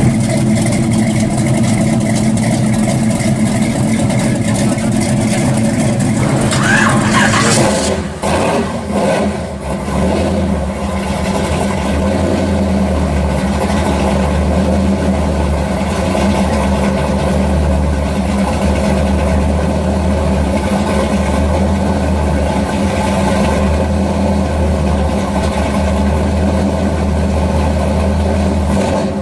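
A vehicle's engine idling for about eight seconds, then, after a cut, a 1966 Chevy II Nova's engine idling steadily for the rest of the time.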